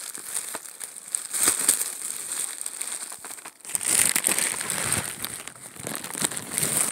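Bubble wrap crinkling and crackling as it is handled and pushed aside in a packed box, louder from a little past halfway.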